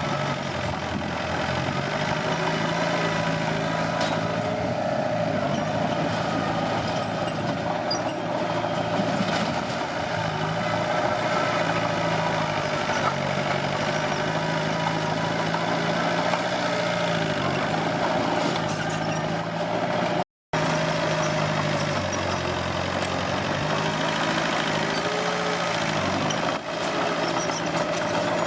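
Komatsu D21P bulldozer's diesel engine running steadily at work, its pitch sagging briefly a few times as it takes load. A split-second dropout cuts the sound about two-thirds of the way through.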